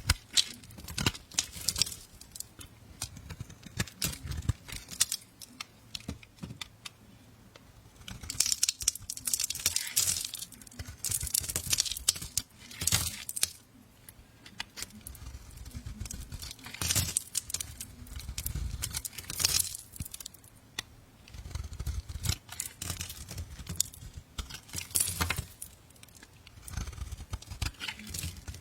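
A knife cutting and carving a bar of soap: crisp scraping and crackling strokes with many small sharp clicks, coming in irregular bursts.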